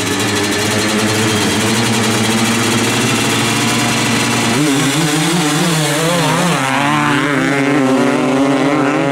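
250cc dirt bikes held at steady revs on the start line, then blipped up and down about halfway through before launching, engine pitch climbing as they accelerate away.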